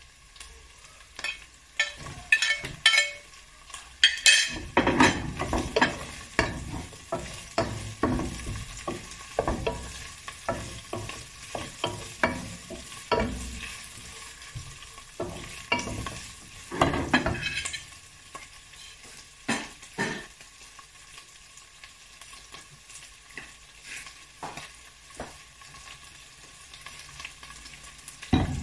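Wooden spoon stirring carrots and green beans frying in a nonstick saucepan: repeated scrapes and knocks of the spoon against the pot over a faint sizzle. The stirring is busiest in the first two-thirds, then comes in occasional strokes.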